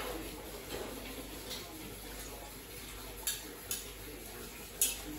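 Quiet kitchen room tone with a few light clinks of glassware and dishes being handled, three short ones a little past the middle.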